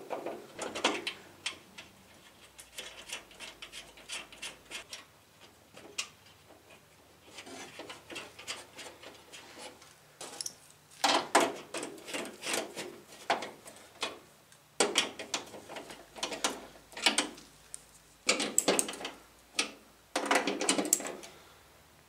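Ratchet wrench with a socket extension clicking in short runs, with pauses and metal knocks, as the nuts holding a door handle inside a car door are turned.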